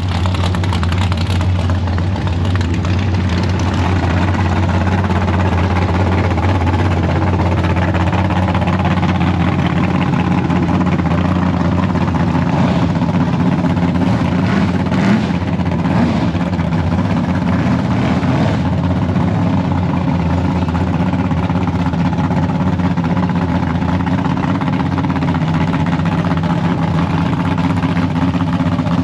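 Car engine running steadily, a constant low drone that holds the same pitch throughout, with a few faint knocks in the middle.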